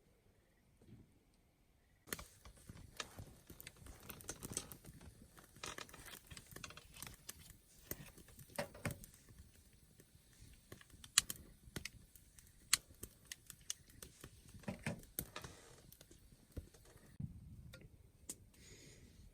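Irregular small clicks, taps and rustling of things being handled close by, starting about two seconds in and easing off near the end.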